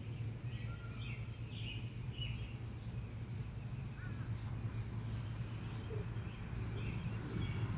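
A steady low hum with scattered short, high bird chirps.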